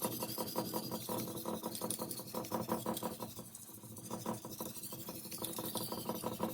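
Steel knife blade being stroked back and forth on an 800-grit diamond sharpening stone with quick, even, rasping strokes, raising a burr on the edge.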